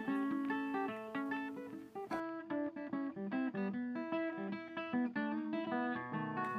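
Background music played on acoustic guitar: a steady run of plucked notes and strummed chords.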